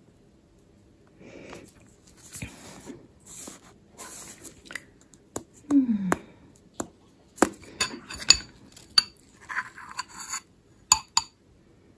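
Paper rustling, then a metal spoon knocking and scraping against a ceramic bowl of porridge in a series of sharp, ringing clinks in the second half. A brief falling tone sounds about halfway through.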